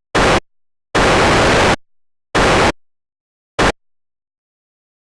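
Static hiss sound effect, TV-snow style, switching on and off abruptly in four bursts with dead silence between. The longest burst, just under a second, starts about a second in; the others are short.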